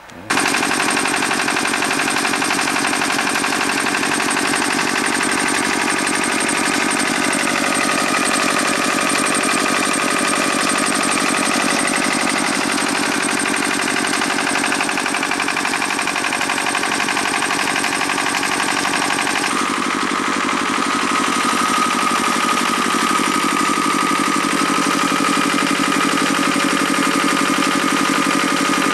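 Small engine-driven generator running steadily with a fast, even pulse; its tone shifts about two-thirds of the way through.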